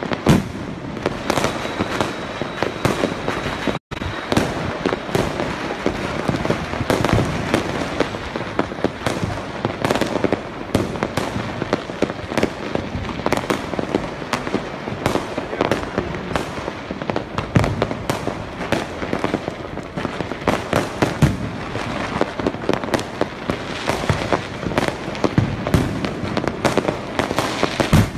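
Fireworks and firecrackers going off continuously: a dense stream of sharp bangs and crackling with no let-up. The audio drops out for a split second about four seconds in.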